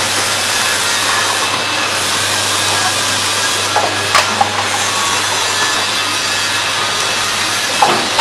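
FB-CFBC water cup filling and sealing machine running, a steady noisy mechanical clatter over a low hum, with a few short squeaks and clicks about four seconds in and near the end.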